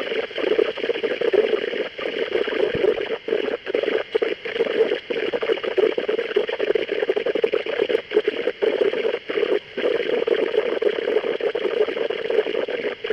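Weather-radio receiver static: a steady hiss from a weak broadcast signal, broken by brief dropouts where the signal fades out and back in.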